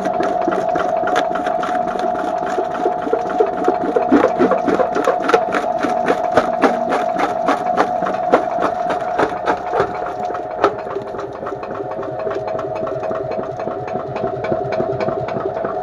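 Homemade jaw crusher running and crushing a lump of coal: a steady machine hum under rapid knocks and cracks from the moving jaw, about three a second. The knocking thins out after about ten seconds.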